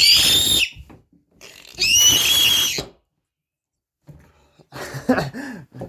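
Two loud, high-pitched squeals, each about a second long, the pitch rising then falling. A low voice follows near the end.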